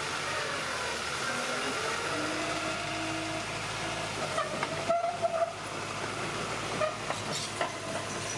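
Bulldozer at work: a steady mechanical din with drawn-out squealing tones that drift in pitch, then a run of clanks and knocks in the second half.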